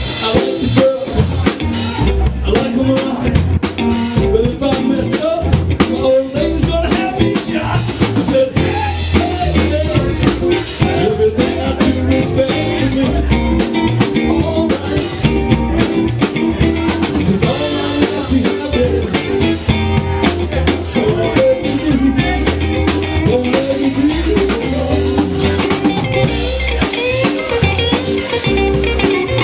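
Live band playing a blues-rock number: electric guitars over a steady beat on a Yamaha drum kit, with a singer.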